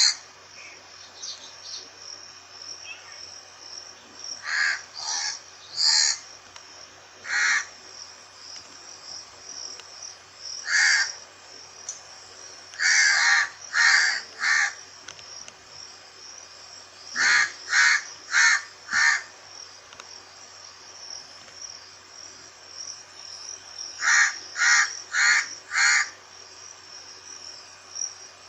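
Crow cawing in short runs of one to four caws, with pauses of several seconds between runs, over a steady high-pitched insect drone.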